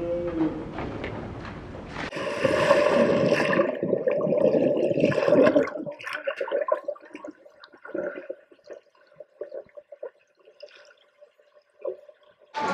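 A person jumps into a swimming pool. Then, heard from underwater, comes dense rushing bubbling and muffled splashing as they thrash about, thinning to scattered bubbling after about six seconds.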